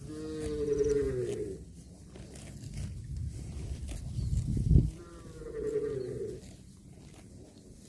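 A calf mooing twice, each call about a second and a half long and falling slightly in pitch, the calls about five seconds apart. A loud thump comes just before the second call.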